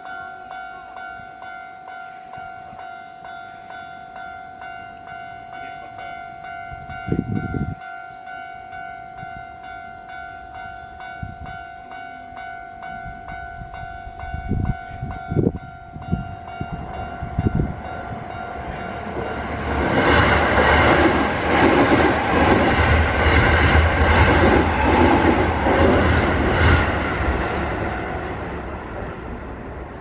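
Japanese railway level crossing's warning bell ringing a steady, evenly repeating tone. From about seventeen seconds in, a Keio Line electric train passes through the crossing, drowning out the bell; it is loudest for several seconds, then fades away near the end.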